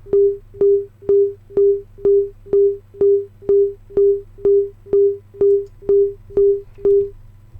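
A 400 Hz sine-wave sample played from a Native Instruments Maschine pad in its MPC engine mode, retriggered as short, pure beeps about twice a second, each starting with a click; the beeps stop just before the end.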